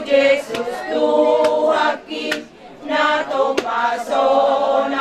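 A group of women singing together unaccompanied, in long held phrases, with a short break about two seconds in before the singing picks up again.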